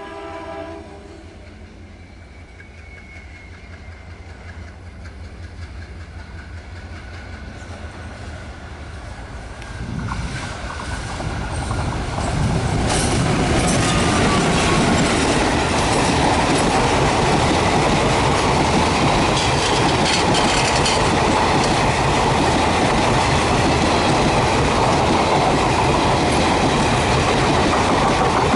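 WDM3A diesel locomotive passing: its horn blast cuts off about a second in, then the engine's rumble grows as it approaches and rises sharply about ten seconds in as it goes by. From about thirteen seconds the express coaches roll past loudly and steadily with the clickety-clack of wheels over rail joints.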